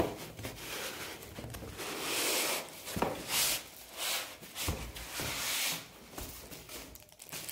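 Foam packing inserts rubbing and scraping against the inside of a cardboard box as they are pulled out, in uneven rustling spells with a couple of sharp knocks.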